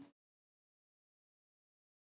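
Complete silence: the sound track cuts out entirely, with no room tone.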